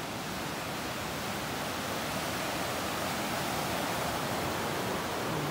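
Fast-flowing mountain river rushing and churning white over rocks close by, a steady, even wash of water noise.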